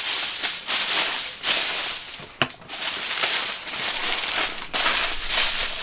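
Aluminium kitchen foil crinkling and crackling in bursts as it is folded and pressed tightly around a rack of pork ribs, with one sharp snap about two and a half seconds in.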